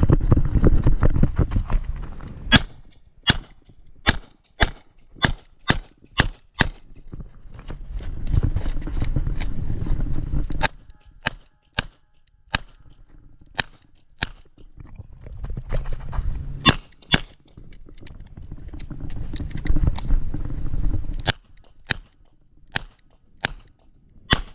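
Smith & Wesson 929 revolver firing 38 Short Colt rounds in fast strings of sharp shots, roughly one to two a second, about eight to a string. Between the strings there is low rumbling noise, and the first shot comes about two and a half seconds in.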